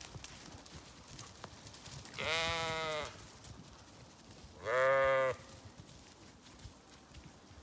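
Zwartbles sheep bleating twice, each call a little under a second long and the second louder, about two and a half seconds apart.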